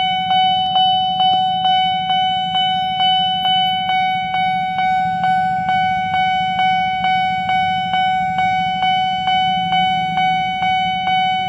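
Railroad level-crossing warning alarm, the crossing's factory-standard electronic siren, sounding while the barriers are down. A steady high electronic tone pulses about twice a second, very noisy.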